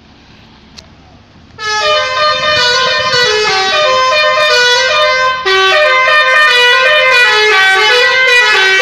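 Six-trumpet telolet musical air horn playing a tune of stepped notes, starting about a second and a half in, with a brief break partway through.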